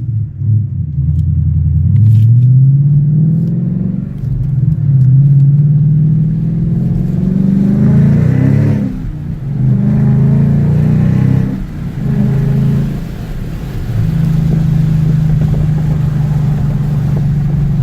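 Ford 5.0 Coyote V8 running through an SVE stage 2 cat-back exhaust with the X-pipe resonator deleted and straight-through glasspack mufflers. It accelerates hard with the exhaust note rising in pitch several times, dipping at each gear change, then settles to a steady cruise for the last few seconds.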